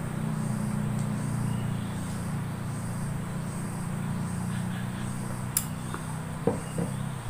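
A steady low mechanical hum that fades out just before the end, with a few faint clicks and small knocks in the last two seconds.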